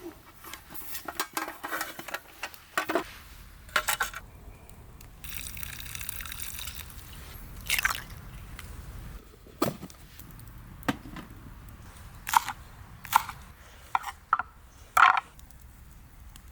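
Cooking sounds from an aluminium mess tin and utensils: a series of separate knocks and clinks, with a short stretch of liquid pouring about five to seven seconds in.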